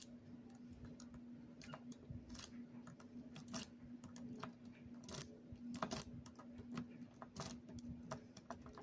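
Lock pick clicking and scraping against the spool pins inside a Master Lock 150 padlock as it is raked slowly with a Peterson General Reach rake: faint, irregular clicks over a steady low hum.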